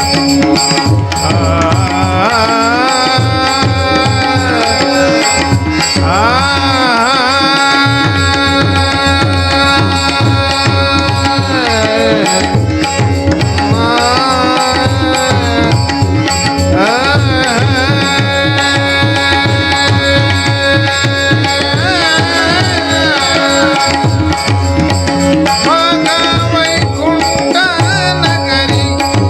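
Marathi devotional abhang music: a singer draws out long wavering notes without words over steady held notes and a continuous hand-drum rhythm.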